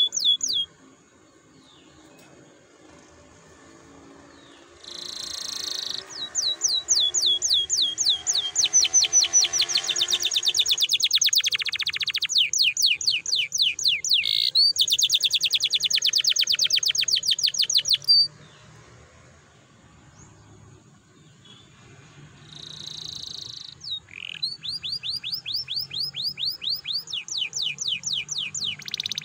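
Domestic canary singing long rolling trills of rapid, repeated falling high notes, in two bouts separated by a pause of several seconds. Each bout opens with a short buzzy note.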